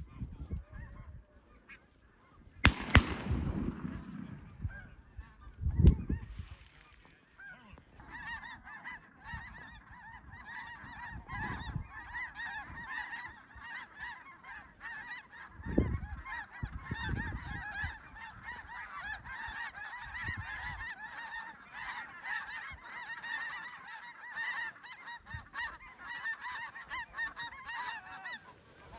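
Chorus of snow goose calls: many overlapping high yelps that swell into a dense, steady clamor from about eight seconds in. Before that, two loud thumps come a few seconds apart.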